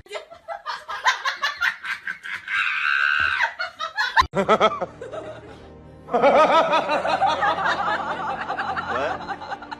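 Laughter over background music, with a sharp click a little past the middle.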